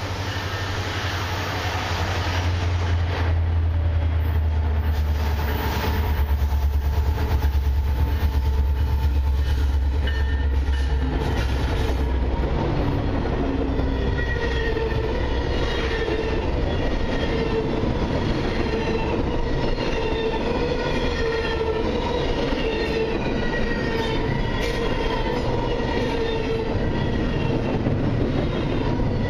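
Lead GE Evolution Series diesel locomotives of a freight train passing close, with a deep engine rumble for the first ten seconds or so. Then loaded double-stack container well cars roll by, wheels clicking over the rail joints and squealing steadily.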